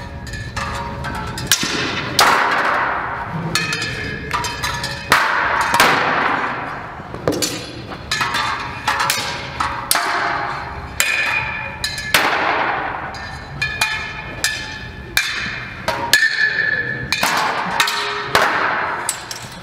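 Steel practice swords and a steel greatsword (spadone) clashing with each other and on round shields: a rapid, irregular series of sharp clashes, each ringing on briefly.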